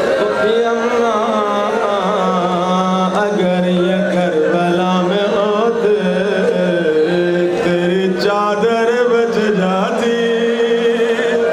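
A man's voice chanting a mournful Muharram lament in a slow, ornamented melody, holding long notes that waver and slide between pitches.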